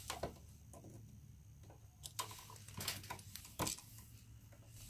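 About half a dozen faint, sharp clicks and taps from handling a plastic electrical outlet and steel lineman's pliers, the loudest about three-quarters of the way through.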